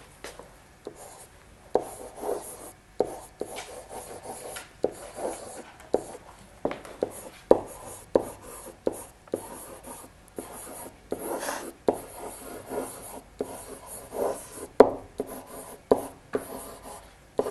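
Pen writing by hand on an interactive whiteboard: irregular taps and short scratchy strokes, about one or two a second.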